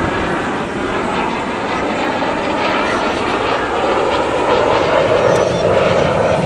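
Aircraft flying past low over the sea, its engine noise a steady, broad sound that slowly grows louder as it approaches.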